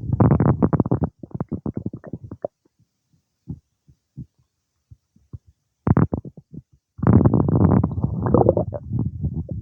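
Human stomach and gut gurgling while digesting a meal. A rapid run of gurgles comes at the start, then scattered pops and a lull, then a brief gurgle and a longer run of gurgling that starts about seven seconds in.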